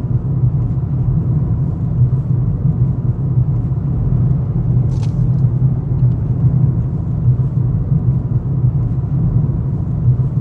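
Steady low road rumble of a car driving, heard from inside, with engine and tyre noise and no change in speed.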